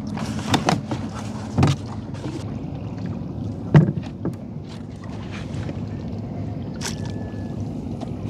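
Knocks and clatter of gear being handled aboard a small fishing boat, over a steady low rush of river water and wind. About half a dozen knocks; the loudest comes about four seconds in.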